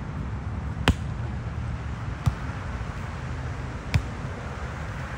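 A beach volleyball struck by players' hands and arms three times during a rally. The hits are sharp slaps about a second and a half apart, the first the loudest.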